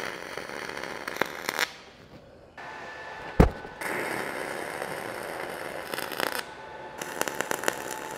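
Dual shield (gas-shielded) flux-cored arc welding with 0.045 wire, laying tack welds: the arc crackles in several bursts of one to three seconds, stopping and starting again between tacks. A sharp knock comes about three and a half seconds in.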